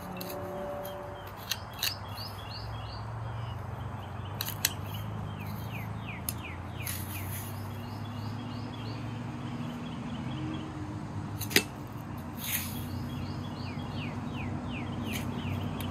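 Hand shovel digging into garden soil, giving scraping and a few sharp clicks. A bird sings repeated runs of quick down-slurred chirps, and a low steady hum runs underneath.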